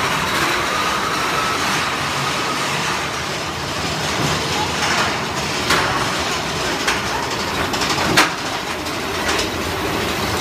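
Big Thunder Mountain Railroad mine-train roller coaster running along its track: a steady rattle and rumble of the cars with several sharp clacks, the loudest about eight seconds in.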